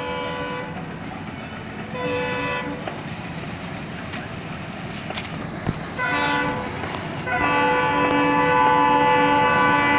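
Air horns of twin WDG-3A diesel locomotives sounding a series of blasts: one ending just after the start, a short one about two seconds in, another about six seconds in, then a long unbroken blast from about seven and a half seconds on. The noise of the passing train runs underneath.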